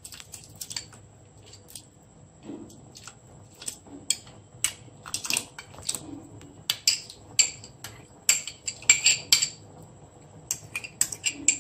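Metal spoon clinking and scraping against a metal bowl and the pot rim in quick, irregular strikes while scooping cooked moong dal into a pot of boiling water. The clinks come thicker and louder in the second half.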